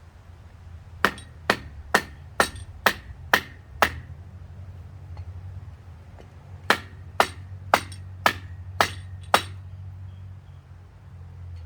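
Sharp metal-on-metal blows in two runs, seven strikes and then, after a pause of a few seconds, six more, each about half a second apart with a slight metallic ring. They come from work on a motorcycle's front fork parts during disassembly.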